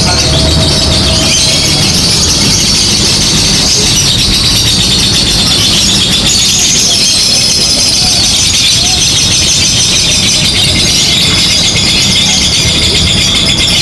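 Lovebird ngekek: a long, unbroken run of rapid, high-pitched chattering song, over a steady low background rumble.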